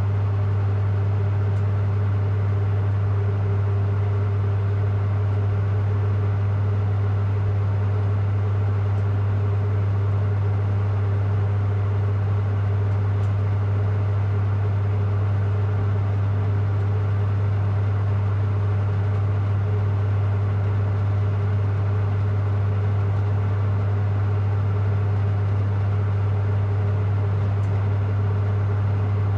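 Generator running with a steady, unchanging low hum, with fainter higher tones and a light hiss over it.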